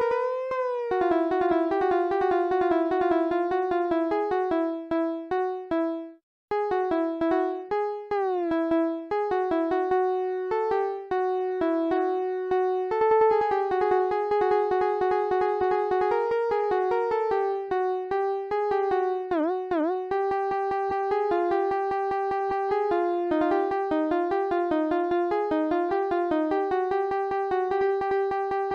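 Instrumental electronic music: a single keyboard-like synthesizer melody playing one note at a time, with a brief gap about six seconds in and a wobbling pitch bend about two-thirds of the way through.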